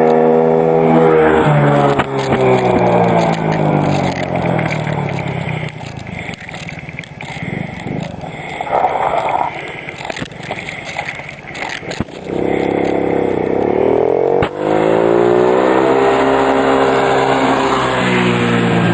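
Small 90cc quad ATV engine revving, its pitch falling and rising as the throttle is worked, with a rougher, quieter stretch in the middle.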